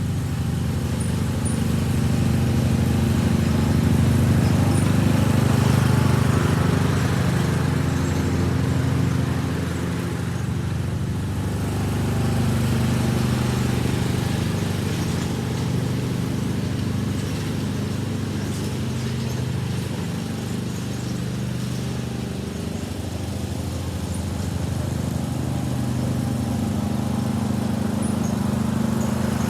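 John Deere riding lawn mower engine running steadily under way, its level swelling and easing slightly as it moves.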